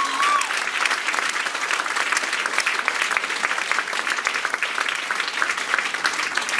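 Audience applauding steadily, a dense patter of many hands clapping. A last held note of the music dies away within the first half-second.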